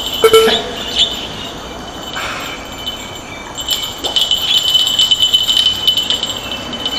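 Fishing reel clicking and whirring while a hooked fish is played on a bent spinning rod: a thin high whir with fast, dense ticking that grows much stronger about halfway through.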